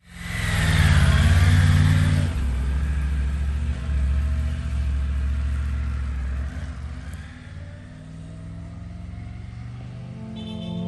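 Triumph Tiger 900's three-cylinder engine running as the motorcycle rides, with a rush of air noise. It is loudest and changing pitch in the first two seconds, then settles into a steadier, lower drone that fades off about seven seconds in.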